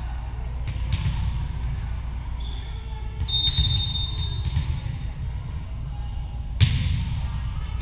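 Volleyball serve in a reverberant gym: a short, steady, high referee's whistle, then about three seconds later a sharp smack of a hand striking the volleyball, the loudest sound, ringing in the hall. A faint knock comes about a second in over a low steady hum of the gym.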